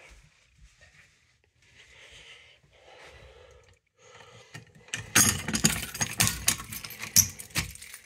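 A ring of keys jangling as a key is put into a fire alarm pull station's reset lock and worked, with a dense run of metallic clicks and rattles starting about five seconds in.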